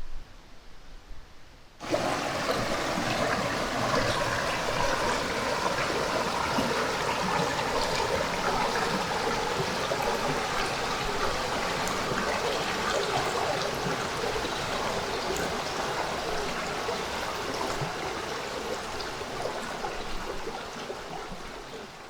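Mountain valley stream flowing, a steady rush of water that starts abruptly about two seconds in and eases slightly near the end.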